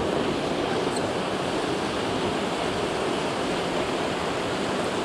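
Fast, shallow river riffle rushing steadily over rocks.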